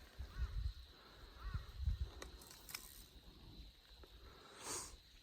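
Low bumps of handling and wind on a handheld camera's microphone, with a few light clicks and a short hiss near the end.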